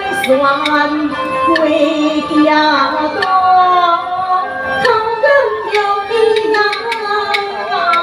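Taiwanese opera (gezaixi) singing with its accompanying band: a voice in long, sliding held notes over the instruments, with sharp percussion clicks now and then.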